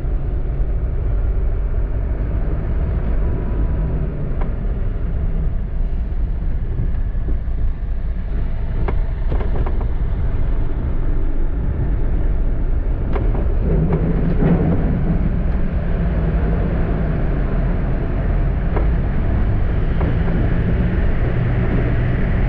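Jeep Wrangler driving slowly, heard from inside the cab: a steady low engine and tyre rumble. A few sharp knocks come as the wheels cross onto the ferry's loading ramp, with a louder rumble around the middle.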